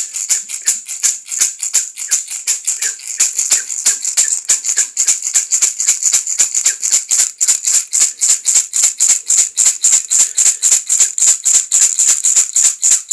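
Handheld shamanic rattle shaken in a steady, even rhythm of about four to five shakes a second, a bright, dry rattling of seeds or beads.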